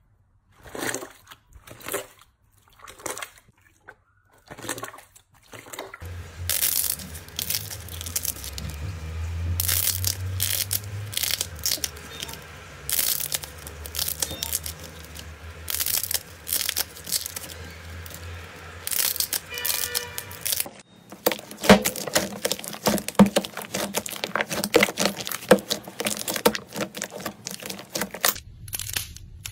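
Slime being pressed, stretched and torn by hand in several short takes. First come separate squishy presses, then a longer run of sticky tearing and crackling, then a dense patter of small crackles and pops.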